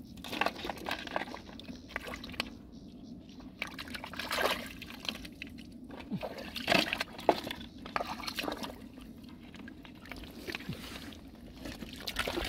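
Shallow water sloshing and splashing as hands feel through the water and mud for snails, with irregular drips and a few sharper splashes a little past the middle.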